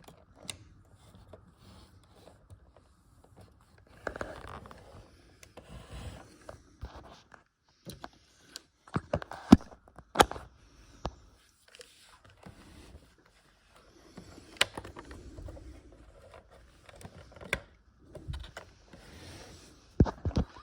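A JVC compact VHS-C camcorder being handled: irregular plastic clicks and snaps, with rustling and scraping as it is turned and its parts are moved.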